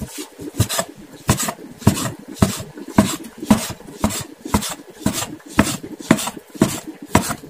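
Kitchen knife slicing a thin egg pancake into strips on a plastic cutting board, each stroke a short rasping cut ending in a knock on the board, about two strokes a second.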